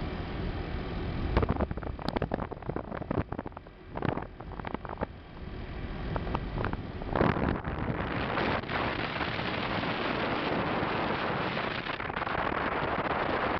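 Wind rushing over a moving camera's microphone at riding speed, buffeting and crackling in uneven gusts at first, then settling into a steady, dense rush about halfway through.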